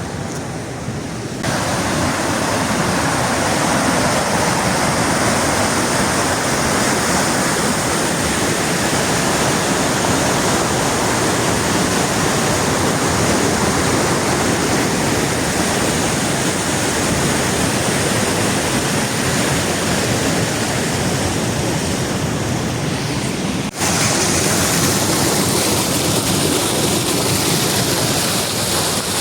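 Waterfall rapids: a steady, dense rush of falling water. It jumps abruptly louder about a second in and breaks off for an instant near the end, where the footage is cut.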